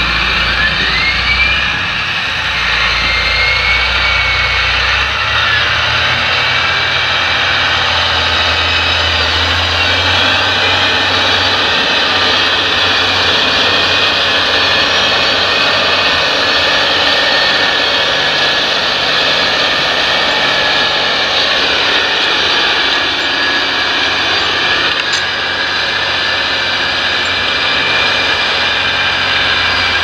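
John Deere 8360RT tracked tractor's six-cylinder diesel engine running under heavy load while pulling an eight-furrow reversible plough, with steady track and running noise. The deep engine rumble is strongest for the first ten seconds or so, then drops away as the tractor moves off.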